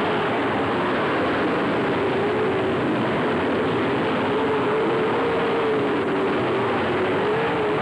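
Field of dirt late model race cars running at speed around the track: a steady blended engine drone with a wavering pitch.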